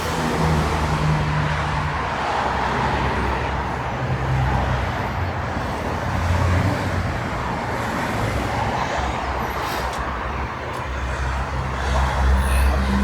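BMW M140i's B58 3.0-litre turbocharged straight-six running steadily at idle, warming up after fresh oil has been put in.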